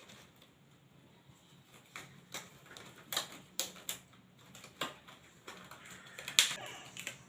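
Examination gloves being pulled on: a scattered series of sharp snaps and rustles, the loudest near the end.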